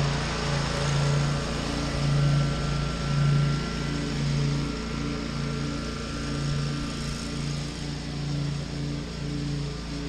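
Riding lawn mower's small engine running steadily with a pulsing low hum as the mower moves away, its higher sound thinning out somewhat after about six seconds.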